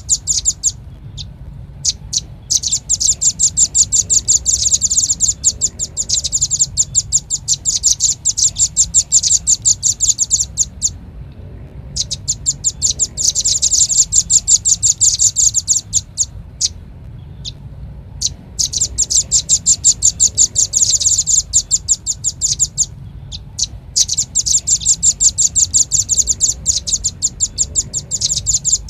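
Velvet-fronted nuthatch calls on a bird-lure recording: long runs of rapid, sharp, high chips lasting several seconds each, broken by short pauses.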